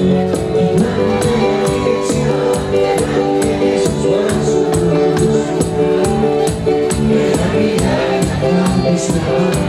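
Live band music with a steady beat: held chord notes over a regular, crisp percussion rhythm.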